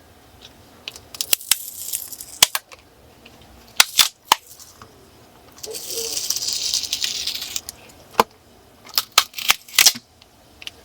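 Sharp clicks and taps of hard plastic as an opened laptop battery pack is handled, with a crinkling rustle lasting about two seconds midway.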